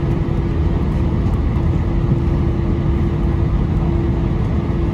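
Cabin noise aboard an Airbus A319 with its CFM56 engines running: a steady low rumble with a constant hum, heard from inside the passenger cabin.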